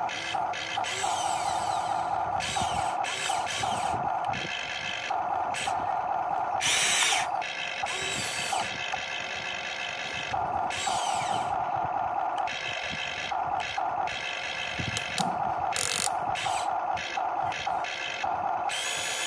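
Electric motors of a Huina 1592 RC excavator whining as the boom, arm and bucket move, starting and stopping in many short runs. Two brief loud rushes of noise break in, about 7 seconds in and near 16 seconds.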